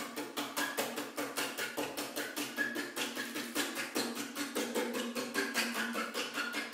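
Fast, even percussion of dry wooden-sounding knocks, about five a second, with a few faint short tones in between.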